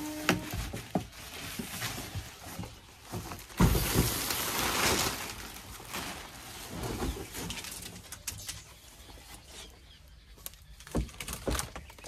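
Packaging being handled: the cardboard box knocks and scrapes as it comes off a new washing machine, then the plastic cover crinkles loudly for about two seconds as it is pulled off, followed by lighter rustles and knocks.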